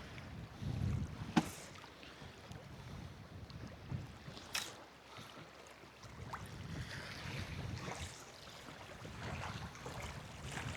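Wind buffeting the microphone and water slapping against a small boat's hull in a choppy swell, with a couple of sharp knocks, about a second and a half and four and a half seconds in.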